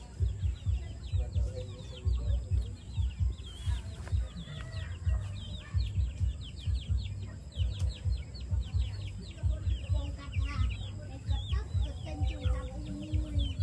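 Birds chirping in many quick, short, falling notes throughout, with a few low chicken clucks near the end, over an irregular low rumbling.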